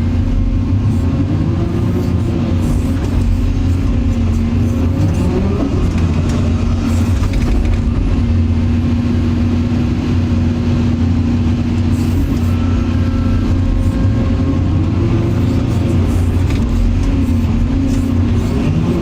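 Heavy construction machine's diesel engine running steadily, with its pitch rising and falling now and then.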